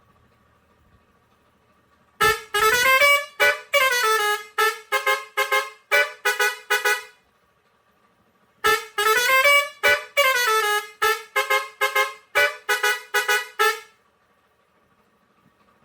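Pioneairs 632S digital air horn with steel trumpets playing a musical tune: a long note swooping up and then down, followed by a run of short blasts. The phrase plays twice, with a short pause between.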